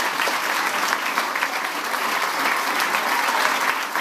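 A roomful of people applauding steadily at the close of a toast.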